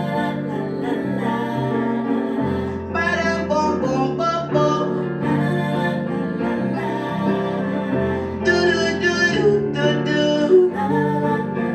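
Live music led by plucked acoustic guitar, played through a stretch of the song with no lyrics sung.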